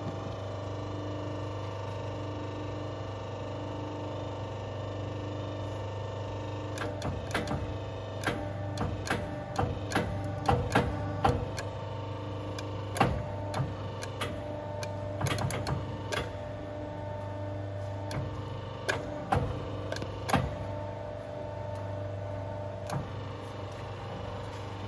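Air-spring crimping machine running with a steady motor hum while it crimps a steel ring onto an air spring bag; from about seven seconds in, irregular clicks and knocks sound as the crimping jaws work, stopping a couple of seconds before the end.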